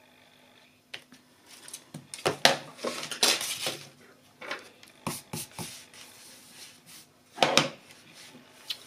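Small crafting tools and card stock being handled and set down on a craft mat: scattered taps, clicks and short paper rustles, the loudest about two and a half seconds in and again near the end.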